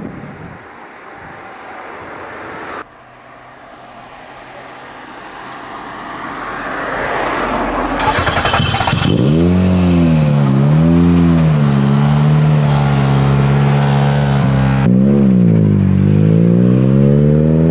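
Ford Fiesta RS WRC rally car's turbocharged four-cylinder engine running at a fast idle from about halfway, blipped up and down several times with steady stretches between. Before it, a rushing noise grows louder.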